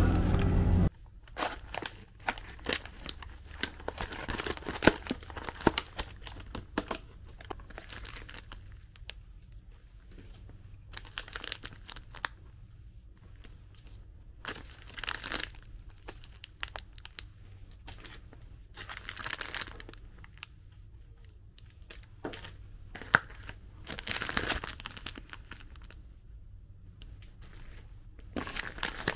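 Clear plastic clamshell packaging and plastic bags of a frozen ramen kit being handled, crinkled and opened: scattered clicks and rustles with several louder spells of crinkling. A louder sound cuts off about a second in.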